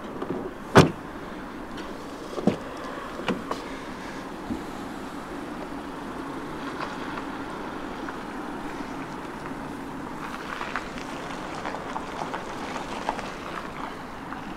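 A loud sharp knock about a second in, then a few smaller knocks and light clicks from the car being handled, over steady background noise.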